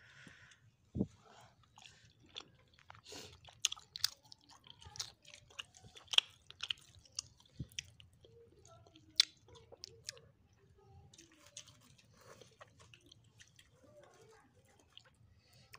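A person chewing grilled fish eaten by hand, with irregular small crunches and sharp clicks throughout; two clicks past the middle stand out.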